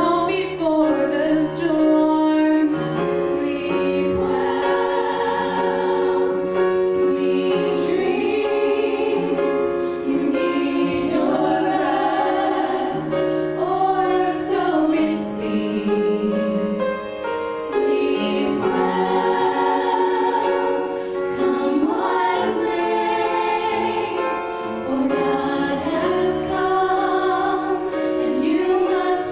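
A women's vocal group singing a slow song in harmony into microphones, several voices holding long notes together.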